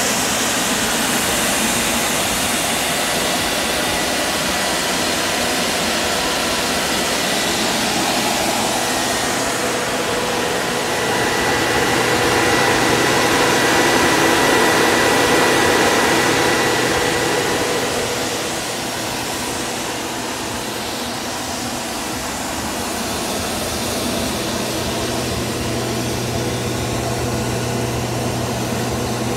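The two 24-volt electric fans of a homemade waste oil burner run steadily: one blows air into the burner barrel and the other blows the heat out. Together they make a whirring rush of air over a steady hum, and they are a bit noisy. The sound swells louder for a few seconds midway.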